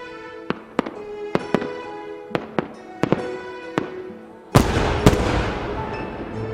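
Fireworks going off: a series of sharp bangs, then a much louder double blast about two-thirds of the way in, trailing into a fading crackle.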